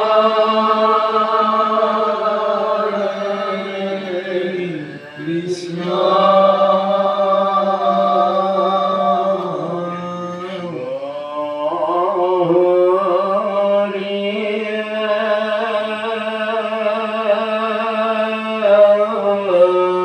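Assamese devotional naam chanting (pal naam): voices sing a slow chant in long held notes, breaking and gliding down in pitch between phrases about five and ten seconds in.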